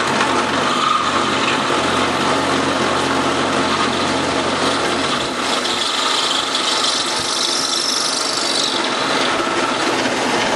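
Mill-drill running with its drill bit boring down into a metal banjo-bolt blank, a steady machining noise from the cut. A higher hiss from the cutting rises for a few seconds past the middle.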